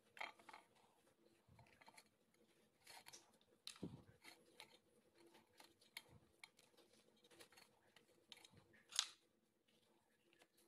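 Faint crinkling and rustling of a steamed banana-leaf wrapper being peeled open, with scattered small crackles and one sharper crackle near the end.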